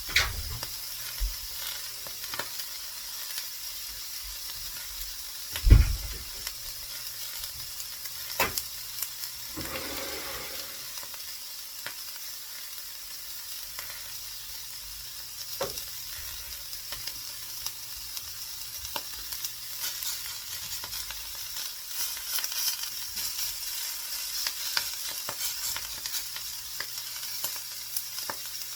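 Food sizzling steadily in a frying pan, with a few sharp knocks and a brief scrape of a utensil working the pan; the loudest knock comes about six seconds in.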